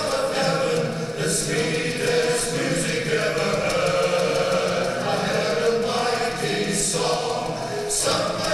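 A choir singing a hymn, the voices holding long notes.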